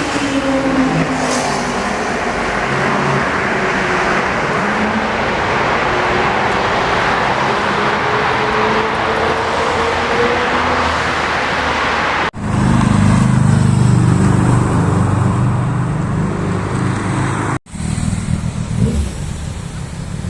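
Loud sport motorcycle exhausts in three clips cut together about 12 and 18 seconds in. The first engine note slides down and then climbs. The later clips run at a lower, steadier note, with revs rising near the end.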